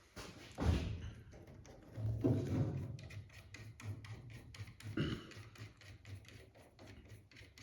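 Hand-tool work on a brake pedal assembly's balance bar as a nut is run onto its end: a few knocks, then from about three seconds in a long run of quick, evenly spaced clicks.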